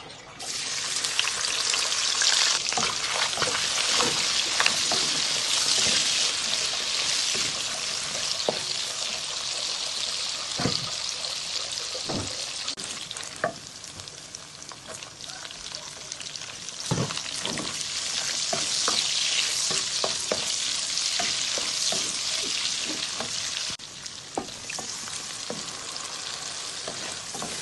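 Food sizzling in a hot pan while it is stirred, with a utensil knocking and scraping against the pan now and then. The sizzle eases off around the middle, swells again, then drops a little near the end.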